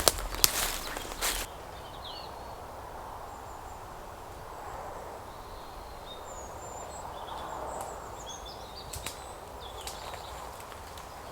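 Footsteps crunching through leaf litter for the first second or so, then quiet woodland ambience with scattered high bird chirps and a couple of faint twig clicks.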